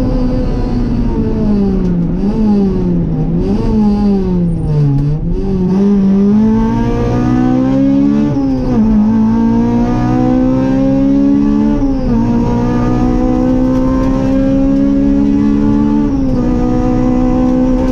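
Rally car engine heard from inside the cockpit. In the first five seconds the revs rise and fall several times as the car slows. After that it accelerates hard, the pitch climbing steadily and dropping sharply at three upshifts, about four seconds apart.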